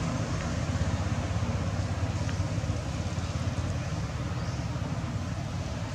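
A motor vehicle engine running steadily: a low hum with a hiss above it.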